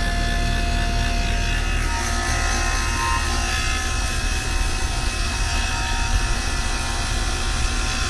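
CPS 8 CFM vacuum pump running steadily with a constant low hum, evacuating an air-conditioning system's refrigerant lines down toward a deep vacuum.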